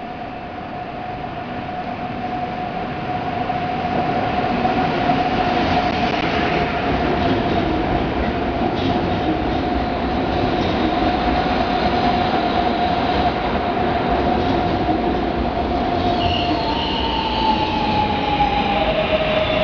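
Koleje Mazowieckie electric multiple unit running into an underground station platform. The rumble of the wheels grows louder over the first few seconds and then holds, under a steady high whine that steps up and then drops in pitch near the end as the train slows.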